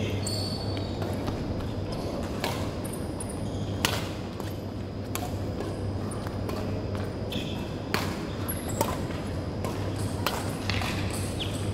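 Badminton rackets striking a shuttlecock during a doubles rally: about half a dozen sharp hits at irregular gaps, in a large hall, over a steady low hum.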